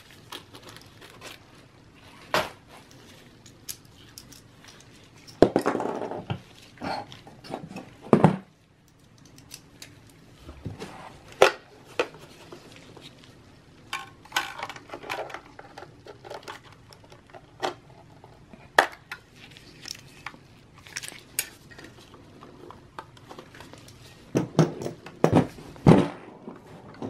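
Hand work on an opened Mac mini with a precision screwdriver: irregular light clicks and taps of small metal tools and parts. There are a few longer stretches of rustling and scraping, about five seconds in and again near the end.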